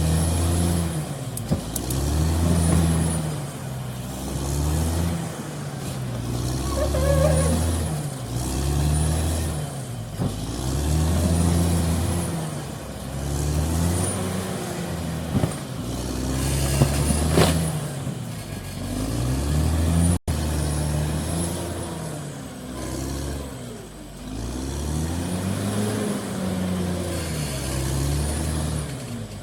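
Caterpillar D6R XL bulldozer's diesel engine working under load, its pitch rising and falling every two to three seconds, with a few sharp clanks partway through.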